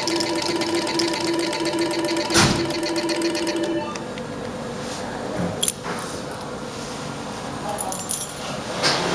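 Electronic roulette terminal's rapidly pulsing counting tone as its cash credits tally up, stopping a little under four seconds in, with a sharp knock partway through. After the tone stops there is a quieter background hum with a few short clicks.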